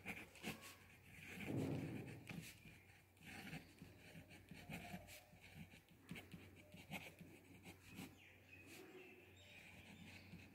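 Faint scratching of a ballpoint pen writing on paper, in short, irregular strokes.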